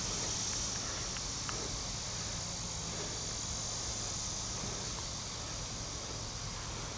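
Steady high-pitched drone of summer insects, with a faint low hum underneath from the distant approaching diesel locomotive.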